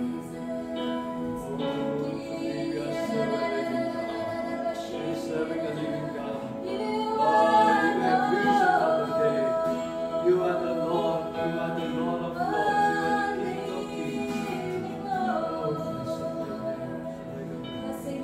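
Worship music: voices singing long, held notes over steady sustained chords.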